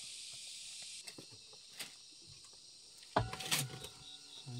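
A steady high insect drone with a faint pulsing whir fades about a second in, leaving faint rustles. A little after three seconds there is a sudden sharp knock with a short ringing tone.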